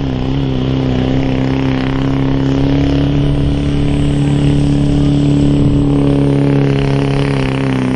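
Chevrolet Silverado HD pickup's Duramax V8 turbodiesel running flat out under full load as it drags a weight-transfer pulling sled, holding a steady pitch with a hiss over the engine note.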